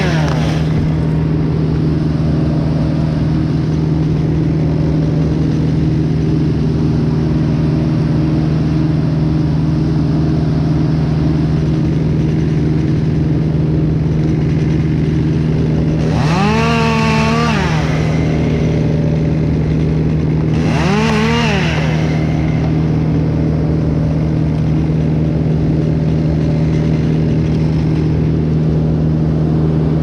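Gas chainsaw revved up twice for short cuts, once about halfway through and again some five seconds later, each time rising, holding briefly and dropping back. Under it a steady engine drone runs throughout, from the aerial bucket truck.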